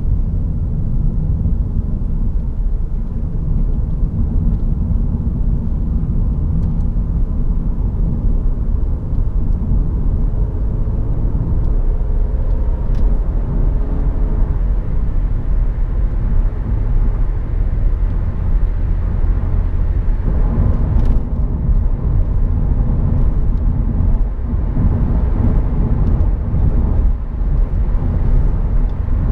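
In-cabin sound of a BMW 535i (F10) driving on the road: its turbocharged 3.0-litre inline-six runs under a steady low rumble of tyre and road noise.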